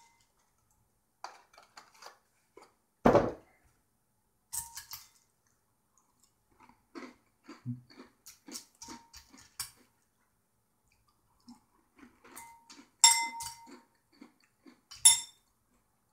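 A metal spoon clinking and scraping in a ceramic cereal bowl, with crunchy chocolate cereal being chewed in a run of small rhythmic crunches. There is one thump about three seconds in, and the two sharpest clinks come near the end.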